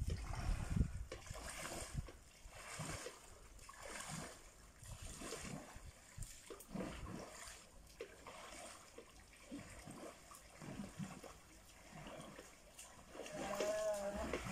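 Swimming-pool water splashing and lapping, faint and irregular, as people move about on inflatable floats, with a louder splash in the first second.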